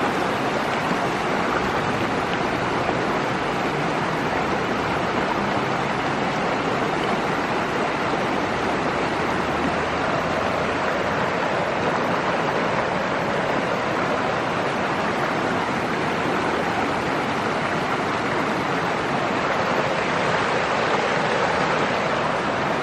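A mountain creek rushing over rocks, recorded close to the water: a steady, even roar of flowing water.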